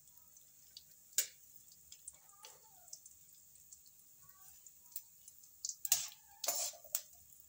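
Cumin seeds spluttering in hot oil in a pan: scattered small pops and ticks, one sharper pop about a second in, and a cluster of louder clicks with a brief burst of noise near the end.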